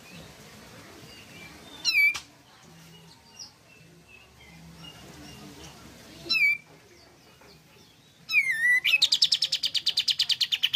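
Caged kapas tembak bulbul calling: two short, quick squiggly notes, then near the end a loud call that runs into a fast rattling trill of about ten notes a second.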